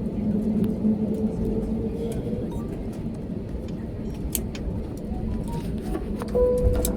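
Steady hum of an airliner's cabin on the ground after landing, with a few sharp clicks and a short tone near the end.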